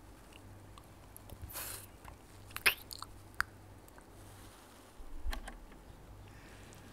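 Close-miked lollipop licking and sucking: wet mouth smacks and slurps as a tongue works a round hard candy, with a few sharp clicks; the loudest smack comes about two and a half seconds in.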